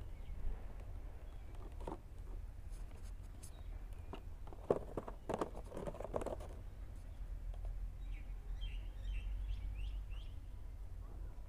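A cardboard hair-trimmer box being handled and turned in the hand, giving a few soft taps and rustles, loudest about five seconds in, over a steady low rumble. A few short high chirps come near the end.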